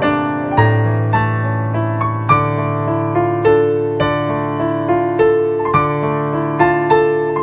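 Background piano music: a gentle melody of single notes over sustained bass notes, struck at an even, unhurried pace.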